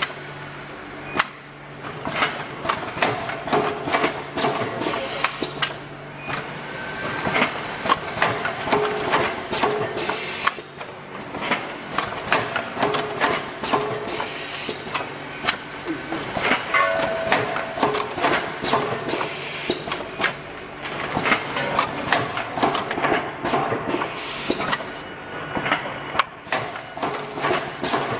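Pneumatically driven automatic packaging and labelling machine running, with a dense, irregular clatter of metal clicks and knocks from its moving parts.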